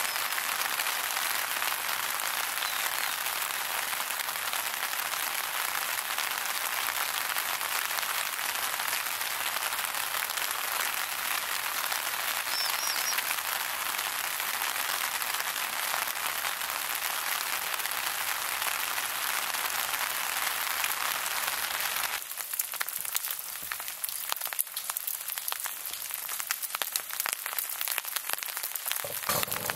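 Heavy rain falling steadily, a dense hiss. About 22 seconds in it changes to a sparser patter of separate drops striking a surface.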